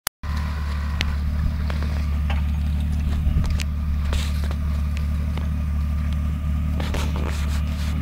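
Off-road 4x4's engine idling steadily, a continuous low drone, with a few light clicks and knocks over it.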